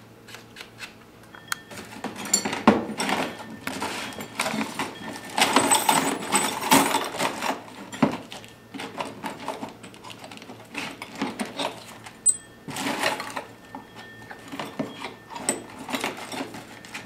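Small metallic clicks and scraping from handwork on a flattened silver wire tip, coming in quick bursts. They are loudest from about two to seven seconds in and again around thirteen seconds.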